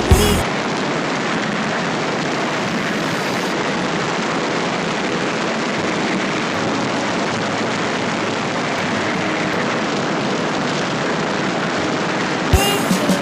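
Steady rushing wind and road noise from a vehicle travelling at speed, with no engine note standing out.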